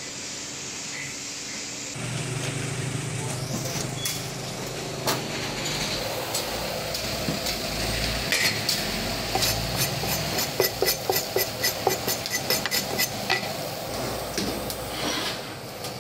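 Frying in a wok over a gas burner: sizzling, with a metal spatula scraping and clanking against the wok, including a fast run of clanks about five a second near the middle of the stretch.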